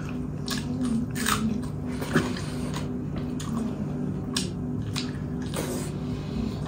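Close-up chewing and biting of food, with irregular short wet mouth clicks and smacks.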